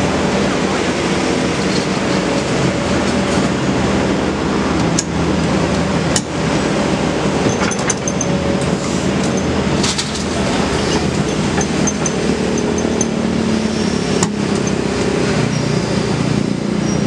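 Kobelco SK200 excavator's diesel engine running steadily under load while its bucket digs asphalt out of a steel dump truck bed, with about four sharp knocks of the bucket against the bed.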